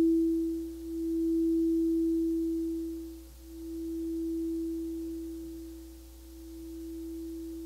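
Singing bowl sounding one pure sustained tone that swells and fades in slow pulses every two to three seconds while gradually dying away.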